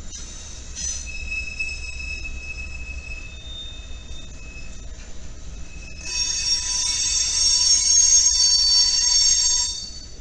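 Freight cars rolling past with a low rumble while their steel wheels squeal against the rail in thin high tones; about six seconds in the squeal turns much louder, several shrill tones at once, and fades just before the end.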